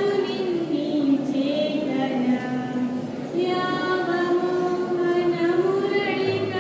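A girl singing solo into a microphone, holding long notes that glide up and down in pitch, in two phrases with a short breath about three seconds in.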